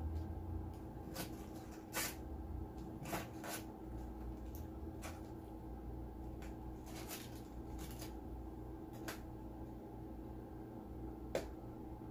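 Eating sounds: scattered light clicks and rustles of a metal fork picking at barbecue ribs in aluminium foil inside a styrofoam takeout box, with chewing, over a steady low hum.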